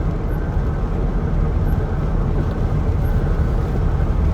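Steady engine and tyre noise heard from inside a car's cabin while driving, a low, even rumble.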